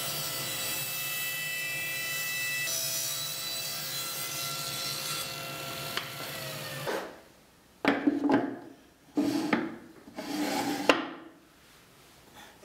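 Table saw running and cutting white oak with a crosscut sled, a steady whine with a low hum that stops about seven seconds in. Then come a few sharp wooden knocks and clatters as small oak boxes are set down and moved on the bench.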